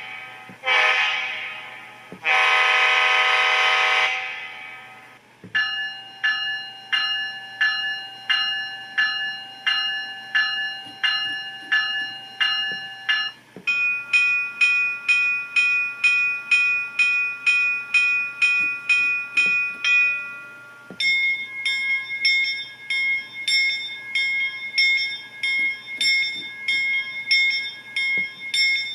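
Diesel locomotive sounds from a TCS WOWSound version 4 DCC sound decoder: a multi-note horn sounds a short blast and then a longer one. After that, three different locomotive bell sounds are played in turn, each ringing steadily at about two strokes a second for some seven seconds.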